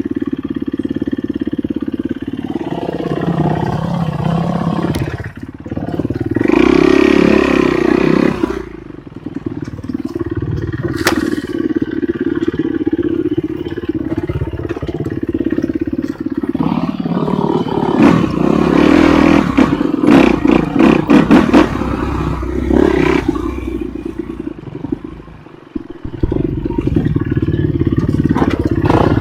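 Enduro motorcycle engine running under load, revving up and easing off again and again, with rattling clatter; it drops away briefly near the end before picking up again.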